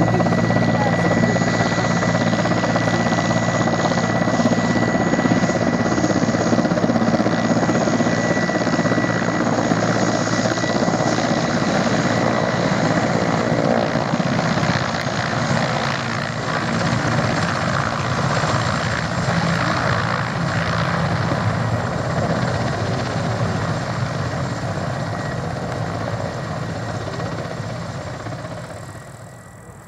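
Mil Mi-8 helicopter taxiing: its twin turboshaft engines whine steadily and the main rotor beats with a low, even throb. The sound fades near the end as the helicopter moves away.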